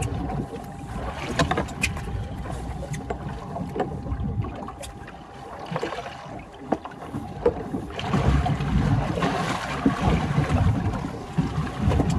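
Water sloshing against a small boat's hull, with scattered knocks of handling on board and a faint steady tone through the first half. It gets louder from about two-thirds of the way in.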